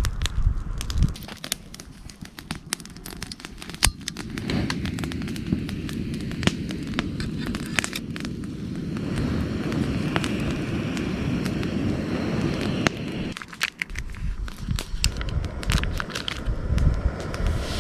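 Wood campfire crackling, with frequent sharp pops scattered throughout. A steadier rushing noise sits underneath through the middle of the stretch, starting and stopping abruptly.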